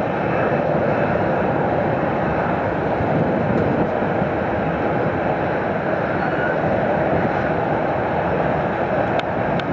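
Steady roar of jet aircraft engines at an airport.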